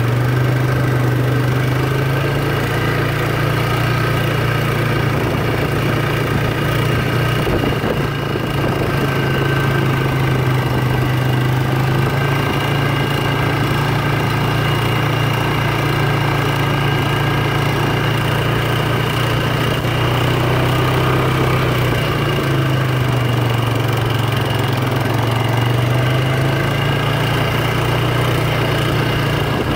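Polaris ATV engine running steadily as the machine rides along, a constant drone whose pitch wavers only slightly with the throttle.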